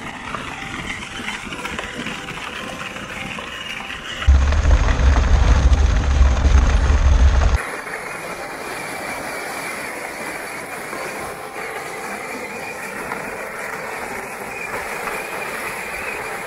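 Battery-powered 24-volt ride-on toy monster truck driving over gravel: its electric drive motors and gearboxes running steadily with the wheels crunching on stones. The sound changes abruptly twice, and a loud low rumble covers the stretch from about four to seven and a half seconds in.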